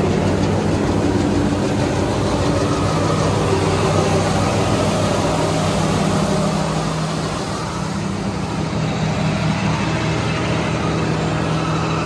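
Heavy farm diesel engine idling, a steady low hum that dips slightly in loudness about eight seconds in.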